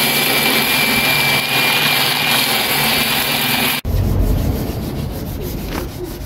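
A corded electric disc sander runs steadily with a thin high whine, sanding the front body panel of a VW Kombi. About four seconds in it cuts off abruptly and gives way to rubbing strokes of hand sanding on the bodywork.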